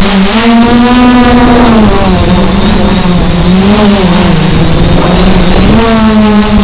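Multirotor drone's motors and propellers buzzing right at the microphone, the pitch shifting as it manoeuvres: higher at first, dropping about two seconds in, wavering, then rising again near the end.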